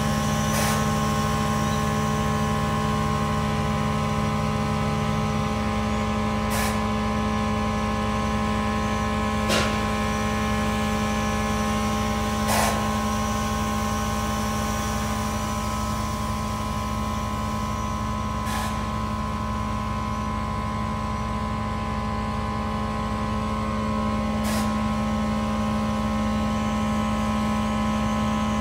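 Steady machinery hum of several unchanging tones, one lower tone dropping out about five seconds in, with a short tick every three to six seconds.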